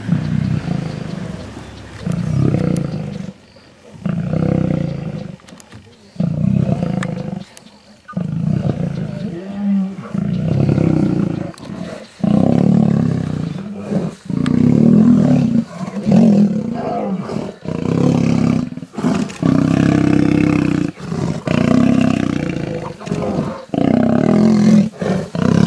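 Male lions roaring and snarling in a fight: a string of loud calls, each a second or two long, with short breaks between them.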